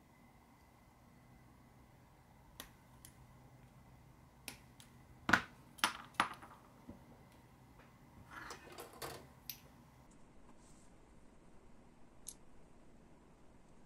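Light clicks and knocks of small hard objects being handled and set down. There are a few single taps, three louder knocks around five to six seconds in, and a short run of rattling clicks around eight to nine seconds in.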